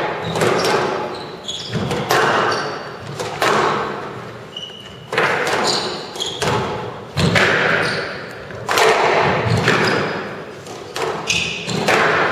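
Squash rally: the ball is struck and smacks off the walls about once a second, each hit ringing on in the hall, with short high squeaks from the players' shoes on the court floor between hits.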